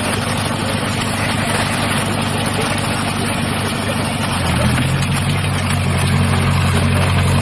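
Off-road vehicle engine running steadily, with noise over it. About four and a half seconds in, its note becomes louder and stronger.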